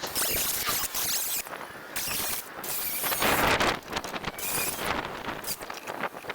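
Angle grinder cutting the sheet-steel wheel opening of a 1956 Willys wagon's body, in several short bursts of high-pitched grinding with brief gaps between them.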